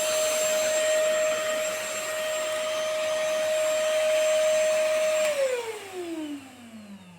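VersLife S6PRO cordless stick vacuum running with a steady hum and rush of air, then switched off about five seconds in, its motor falling in pitch as it spins down.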